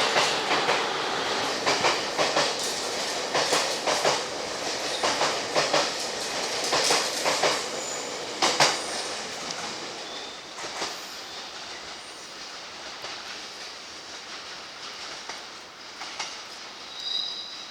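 A train running past a level crossing, its wheels clacking over the rail joints, the noise fading steadily as it draws away.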